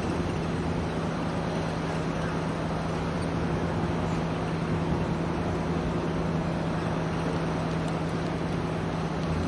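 An engine running steadily, with an even hum and no change in pitch.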